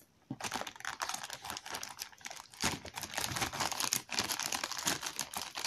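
Small scissors snipping through a plastic mailer bag, with the plastic crinkling and rustling as it is cut and handled: a quick, irregular run of clicks and crackles.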